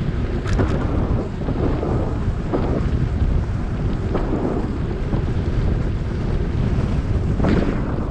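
Wind buffeting a GoPro Hero7's microphone while riding an electric bike, a steady low rumble with a few short sharp knocks.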